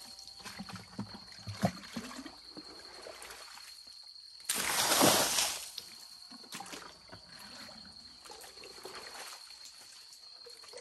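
Water poured out of a plastic bucket onto the ground, one splashing rush of about a second starting about four and a half seconds in; in between, quieter sloshing and knocks as the bucket is dipped back into the spring pit to bail out more water.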